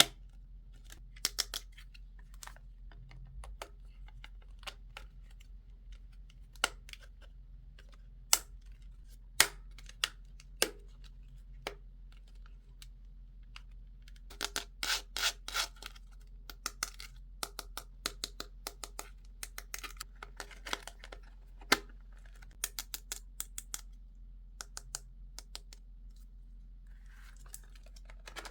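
Barbie toy pieces and packaging being handled in an unboxing: scattered sharp clicks and taps, with a dense run of quick clicks and rubbing about halfway through and again a few seconds later.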